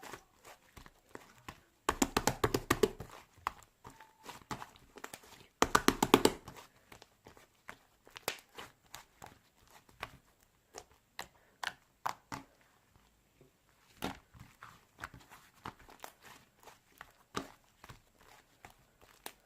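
Soft, fluffy slime squished and poked by hands, making scattered sticky clicks and pops, with two short runs of fast crackling about two and six seconds in.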